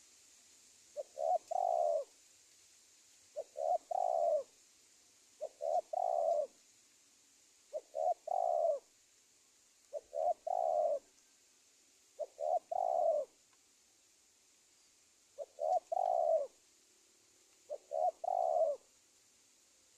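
Spotted dove cooing: eight calls about two seconds apart, each two short notes followed by a longer drawn-out coo.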